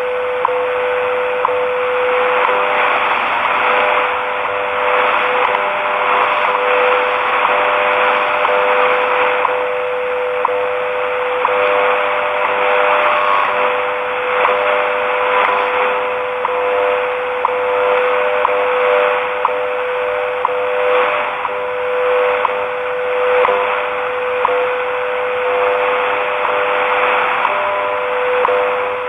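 WWV time signal on 10 MHz shortwave, heard through a portable Eton Grundig Edition Traveler III radio's speaker. It plays a steady tone with short clock ticks about once a second over shortwave static hiss.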